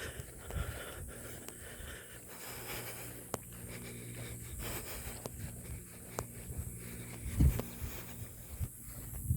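A hiker breathing hard while walking, with light scattered clicks and a couple of low thumps about seven and a half seconds in.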